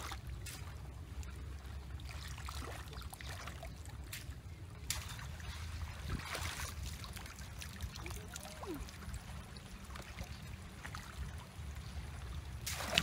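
Shallow muddy floodwater trickling and splashing as a woven bamboo basket is dipped and scooped through it, with a few short splashes over a steady low rumble.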